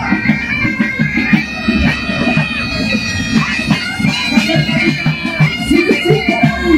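Pipe band playing while marching: bagpipes sounding a tune over their steady drones, with a bass drum beating time underneath.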